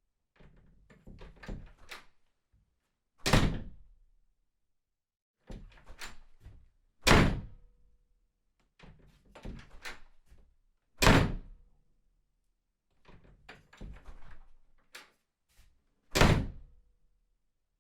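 A door opened and shut four times: each time a run of soft handle and latch clicks and rattles, then one loud shut, about every four seconds.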